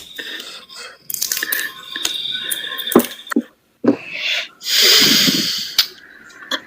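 A person's heavy, noisy breathing close to a microphone, in irregular breaths; the loudest, a long one, comes about five seconds in.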